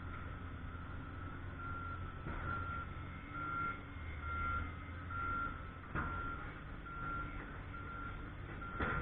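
Backup alarm on a heavy work vehicle beeping steadily, a little over once a second, over a low diesel engine hum: the machine is reversing. Two sharp knocks break in, one about two-thirds of the way through and a louder one near the end.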